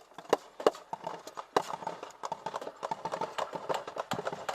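A string of sharp cracks and knocks at irregular intervals: a few loud ones in the first second, then a denser run of lighter clatter.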